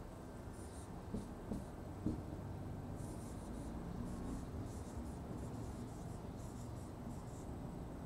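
Dry-erase marker writing on a whiteboard: a series of short, faint scratchy strokes as a word is written.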